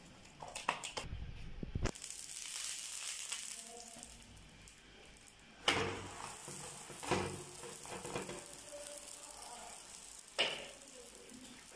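Square of oiled msemen dough sizzling on a hot cast-iron griddle, the frying hiss starting about two seconds in. Three short thumps come as hands press the dough flat.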